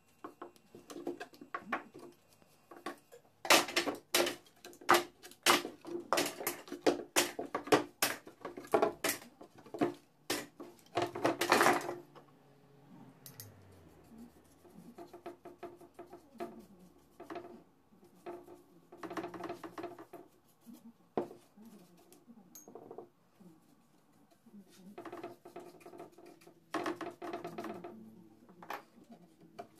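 Light tapping and clinking of a brush against a small glass jar and over thin wooden cut-out pieces: clusters of quick taps, busiest in the first half and again near the end, quieter in between.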